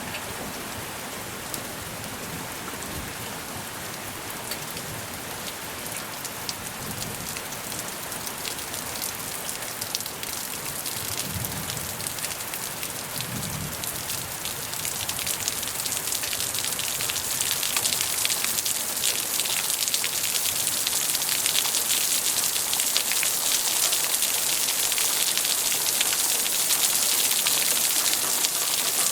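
Steady rain falling on a surface, a dense patter of drops that grows louder and heavier about halfway through.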